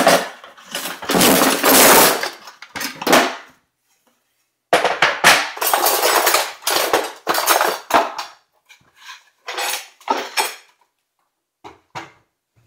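Cutlery and other kitchen odds and ends clattering and knocking as they are put back into a wooden drawer, in busy bursts with a short pause about four seconds in and only scattered knocks toward the end.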